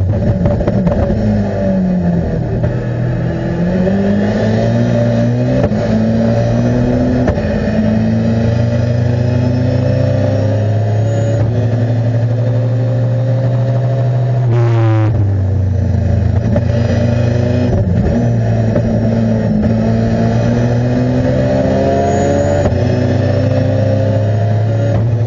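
BMW E21's M42-based 2.0-litre four-cylinder racing engine with individual throttle bodies, heard from inside the cockpit at high revs under hard driving. The revs fall and climb repeatedly, hold high through the middle, and drop sharply at a gear change about fifteen seconds in, then climb again.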